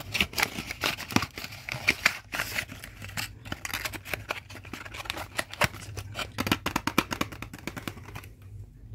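Small paperboard box being handled and its flaps folded shut: irregular rustling and scraping with many light clicks and taps, dying away near the end.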